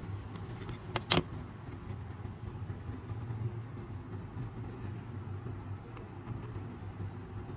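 A steady low hum with two sharp clicks about a second in, the second the louder.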